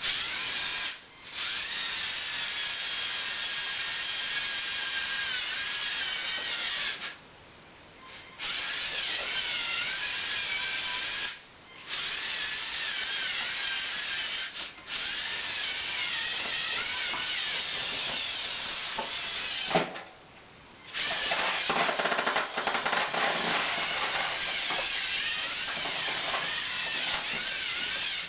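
Electric motors and plastic gear train of a remote-controlled Lego Technic chassis whining as it drives, the pitch wavering with load. The motors stop for about a second several times and start again. In the last several seconds the whir turns rougher, with clicking.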